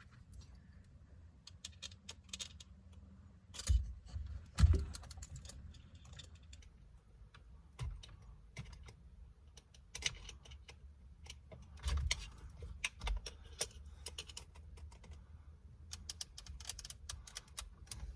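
Scattered small clicks, rattles and scrapes of a screwdriver prying at the airbag ground connector behind a car steering wheel, with a few louder knocks about four and twelve seconds in.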